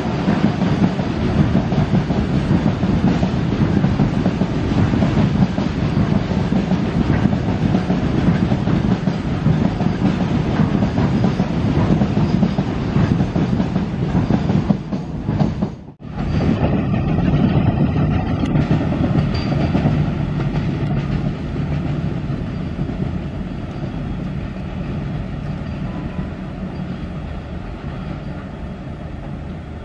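Goods train of covered wagons rolling past, its wheels clattering over the rail joints in a steady rumble. About halfway through the sound cuts out for a moment. Train rumble then resumes and slowly fades.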